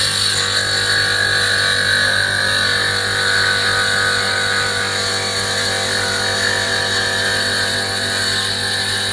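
Stained glass grinder's diamond bit grinding the edge of a piece of glass, a steady, loud, gritty grinding over the hum of the grinder's motor.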